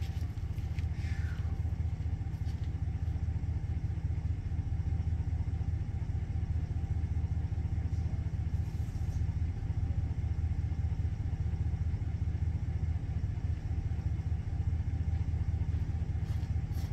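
Pickup truck engine idling, a steady low rumble heard from inside the cab.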